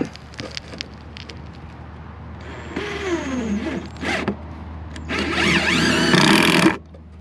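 Power drill driving two screws into a wood form board, in two short runs. The motor pitch sags and recovers as each screw bites and seats, and the second run is louder.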